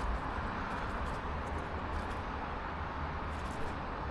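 Steady background noise, an even hiss with a low rumble under it and no distinct events.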